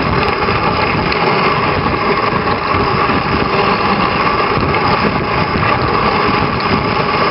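Steady, loud rushing and scraping of a dog sled's runners gliding over a packed snow trail while the team runs ahead.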